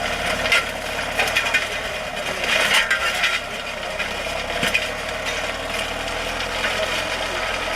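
Farm tractor at work plowing: a steady engine hum under continual irregular clattering and clinking rattles.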